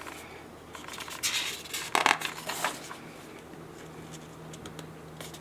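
Paper workbook pages being handled and turned: a few short rustles and scrapes in the first half, then scattered light taps.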